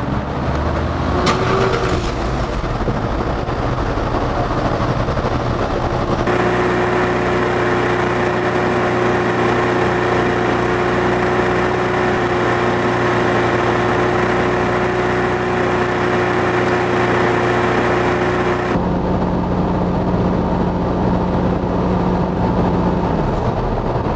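Jaguar XF 3.0-litre V6 diesel engine starting and then idling steadily, warming up toward the 61 °C needed before a forced diesel particulate filter regeneration. A long middle stretch is played at double speed, so the idle sounds higher and faster there.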